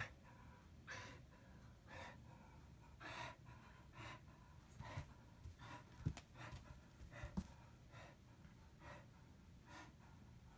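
Faint gasping breaths from a dog, about one a second, during a spell of weakness that the owner later put down to a drop in blood pressure from internal bleeding caused by hemangiosarcoma. Two dull thumps a little over a second apart come midway.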